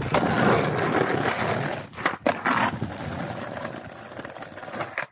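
Skateboard wheels rolling over rough asphalt, a steady gritty rolling noise that is louder in the first couple of seconds, with a few sharp knocks from the board about two seconds in.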